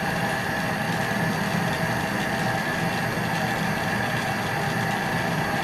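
Glassworking torch flame burning steadily, an even noise with a low rumble and a steady high tone.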